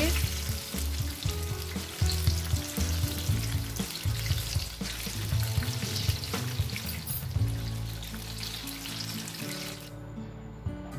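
Mango pakoras deep-frying in hot oil on a high flame, the oil sizzling and bubbling steadily around the battered pieces. The sizzling cuts off suddenly near the end.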